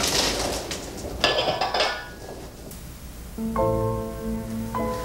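Rustling with a brief clink, then a musical instrument starts to be played: a slow struck chord about three and a half seconds in and another just before the end, each note ringing on.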